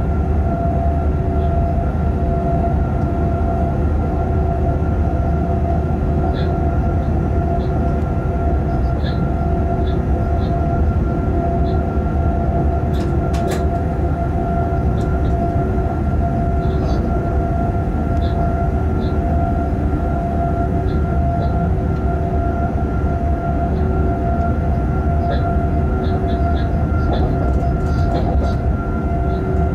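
Freight train running at steady speed, heard inside the locomotive cab: an even low rumble of wheels on rail with a constant hum of a few held tones. Scattered small ticks throughout, and a sharper click about 13 seconds in.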